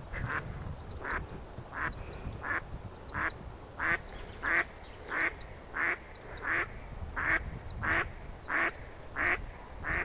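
A hen duck quacking over and over at a steady pace, about three quacks every two seconds, as a dog swims close to her ducklings: alarm calls from a mother guarding her brood. High, short chirps repeat above the quacks.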